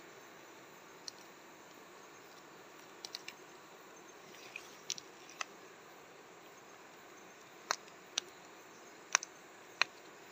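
Scattered sharp clicks and small snaps, about ten of them, the loudest in the second half, over a steady faint hiss.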